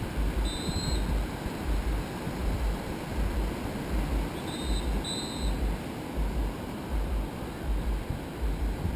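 Wind buffeting the camera microphone in irregular gusts, over the steady wash of surf on a sandy beach. Three short high chirps cut through: one about half a second in, then two close together around four and a half to five seconds in.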